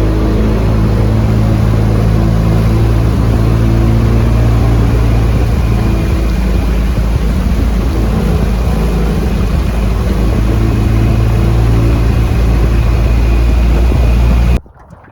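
Yamaha 25 outboard motor running steadily under way, with the rush of wind and water over it; its pitch holds nearly level, shifting slightly partway through, and the sound cuts off suddenly near the end.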